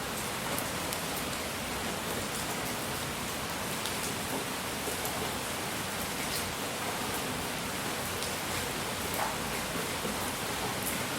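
Steady, unchanging hiss of relaxation noise, like gentle rain, with faint scattered ticks on top.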